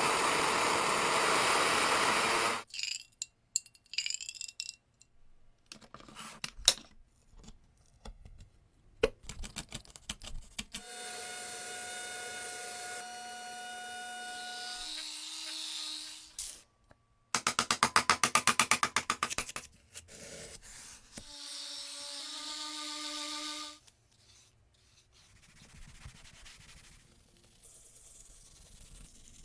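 A run of separate workshop sounds on metal restoration work: a loud hissing rush at the start, scattered clicks and knocks, then small tool motors running with a steady whine, a loud fast-pulsing buzz in the middle and a second whine, ending in faint scraping.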